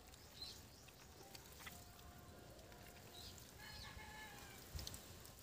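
Near silence, with faint calls of a live chicken: a thin held note from about two seconds in, then a short call just before four seconds.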